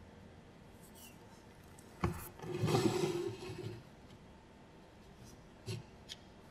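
Light handling of small objects on a miniature wooden set: a sharp knock, then about a second and a half of rustling and rubbing, then two small taps near the end.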